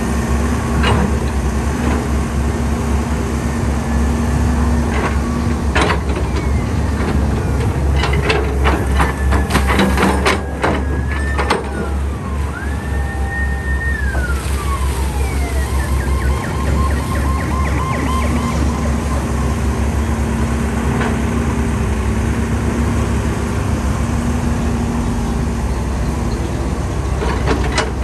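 Caterpillar 320D excavator's diesel engine running steadily under load as the hydraulics work the boom and bucket, with a cluster of clanks and knocks about six to eleven seconds in as the bucket digs in wet mud. Around the middle, a high whine rises, holds for a second or so, then glides down.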